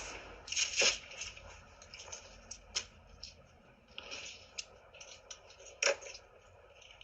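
Faint, irregular scuffs, rustles and clicks picked up by a doorbell camera's microphone, with sharper taps about a second in and near the end.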